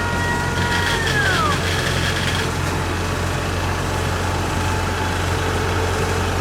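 Diesel engine of a Kubota DC-93 combine harvester running steadily at a low, even pitch. A high steady whine sits over it for the first second and a half, then drops in pitch and fades out.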